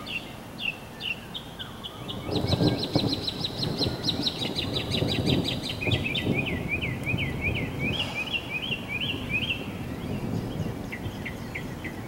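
Songbirds chirping: quick trills and repeated slurred chirp phrases, with a low rumble underneath from about two seconds in.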